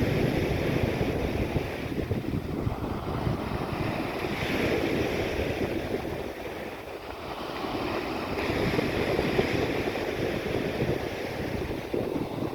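Sea waves washing on the shore, swelling and easing, with wind buffeting the microphone.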